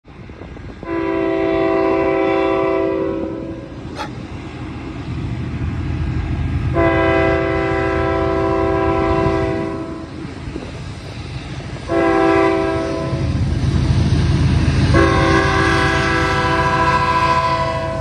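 BNSF diesel locomotives' multi-chime air horn sounding the grade-crossing signal: long, long, short, long blasts. Under it the locomotives' diesel engines rumble, growing louder from about the middle as the train accelerates up to the crossing.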